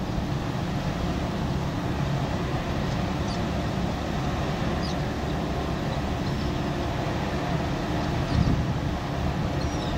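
Tugboat diesel engines running hard under load as the tug pushes against a ship's stern: a steady low drone with churning water. A few faint bird chirps come in a few seconds in.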